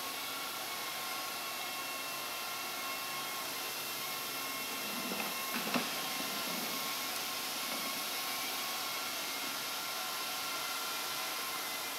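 Steady whirring noise of running industrial machinery, with several faint steady whining tones. A single knock about six seconds in.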